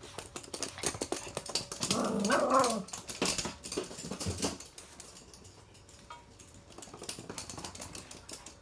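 Toy poodle's claws clicking quickly on a hard, glossy floor as it runs. A dog gives a short whine about two seconds in.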